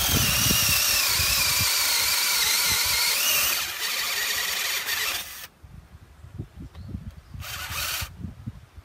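Ridgid cordless drill boring a hole into a wooden form post: a long run of about five seconds with the motor whine dipping slightly in pitch as the bit works into the wood, then a pause and a short second burst near the end.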